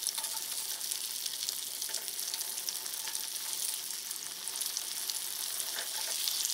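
Egg-and-breadcrumb-coated chicken pieces deep-frying in hot oil in a kadai on a high flame, with a steady crackling sizzle. There are a few faint clicks of a metal spoon against the pan as the pieces are turned.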